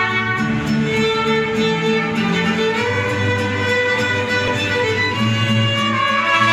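Mariachi band playing, with the violins carrying the melody over guitar accompaniment and a steady bass line.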